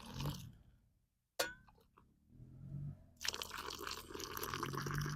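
A single sharp metallic clink about a second and a half in. From about three seconds, the steady low drone of four-wheeler engines passing, with a hiss over it.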